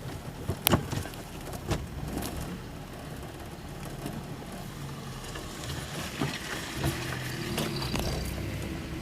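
Inside the cabin of a moving ZAZ Slavuta: steady engine and road noise, with a few sharp knocks and rattles in the first couple of seconds. The noise swells a little near the end as an oncoming car goes past.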